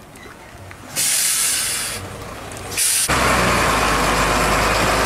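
Heavy truck's air brakes hissing in two bursts, the first about a second in and a short one about three seconds in, then the truck's diesel engine running loudly with a steady rushing noise.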